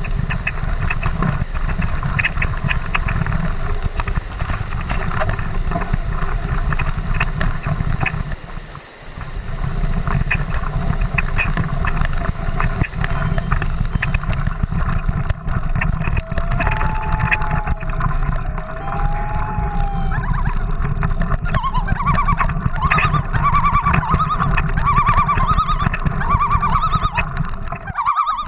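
Mountain bike riding along a forest dirt trail, heard from a bike- or helmet-mounted camera: a steady low rumble of wind and trail vibration with rattling clicks, dipping briefly about nine seconds in. In the second half, short squeaky tones come and go over the rumble.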